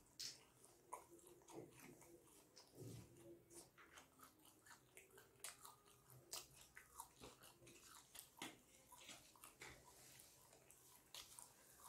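Faint chewing of a mouthful of steamed chicken momo dipped in chutney: many small, irregular mouth clicks and smacks.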